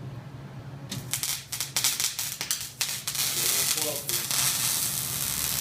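MIG welding arc crackling. It strikes about a second in and sputters in short, popping starts, then settles into a steady, even crackle "like frying eggs", the sound of a good, consistent weld. It cuts off at the end.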